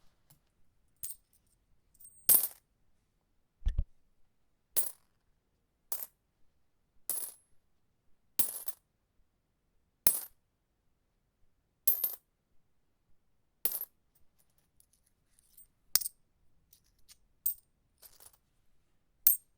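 Coins dropped one at a time onto a hard surface: a sharp metallic clink with a short bright ring about every second or so, some with a quick bounce or two after. One duller low thump about four seconds in.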